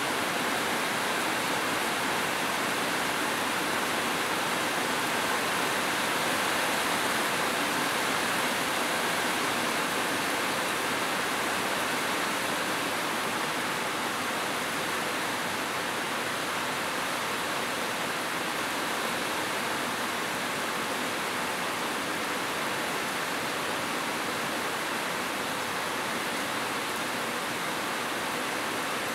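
Heavy rain falling steadily on corrugated metal roofs, an even, unbroken hiss of a downpour.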